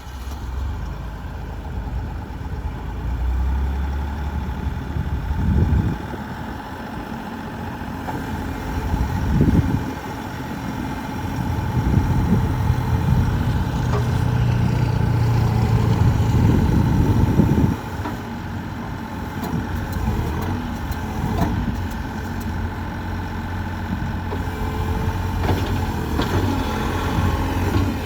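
Bobcat E50 compact excavator's diesel engine running, swelling louder several times (about six and ten seconds in, and from about twelve to eighteen seconds) before dropping back to a steadier run.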